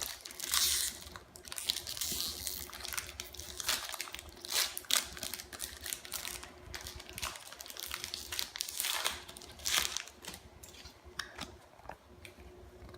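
Foil wrapper of a Pokémon Evolutions booster pack crinkling and being torn open by hand, in irregular rustles and rips.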